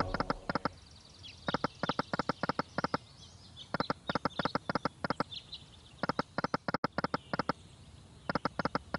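Sound effects of the EGT Majestic Forest online slot running its free spins. Each spin brings a quick run of clicks, coming about every two seconds, five runs in all. Faint bird-like chirps from the game's forest theme are heard between them.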